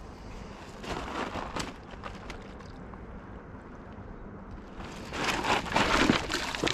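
Hooked trout splashing at the surface, once briefly about a second in and then louder and longer near the end as it is brought to the landing net, over a steady low wind rumble on the microphone.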